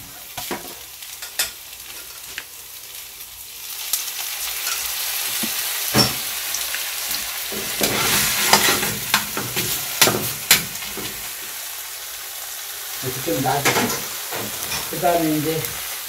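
Shredded potato pancake sizzling in oil in a nonstick frying pan, the hiss growing stronger about four seconds in. A metal turner touches the pan with several sharp clicks.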